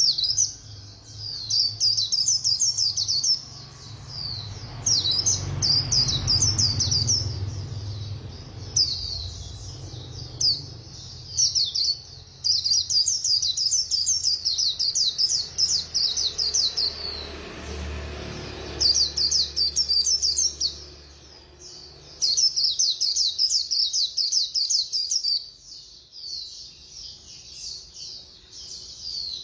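White-eye (khuyên) singing its fast, twittering 'líu' song: rapid, high chattering phrases a few seconds long, broken by short pauses. A low hum runs underneath for about the first two-thirds, then fades.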